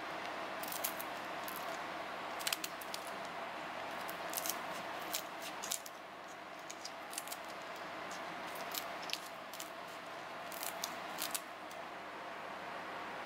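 Kitchen scissors snipping through the shells of raw mantis shrimp: a run of sharp, irregular cuts that stops near the end, over a steady background hum.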